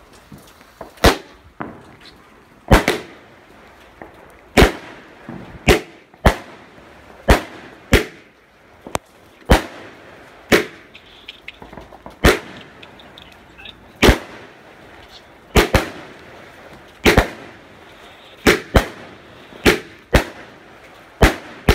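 Celtic Fireworks 'Flash Harry' 16-shot cake with 20mm tubes, firing its shots into the air. It makes a string of sharp bangs, about one every one to two seconds, each ringing out briefly.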